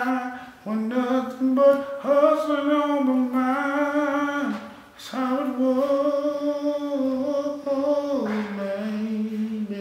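A single voice singing long held notes, gliding between pitches, with no words made out and no clear instrumental backing. There is a short break about halfway through, and the pitch steps down near the end.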